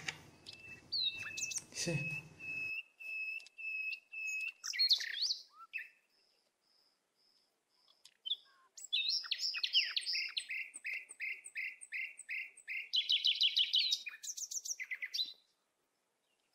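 Birds singing: a long held whistled note, then high repeated chirps about three or four a second, with a quick trill near the end.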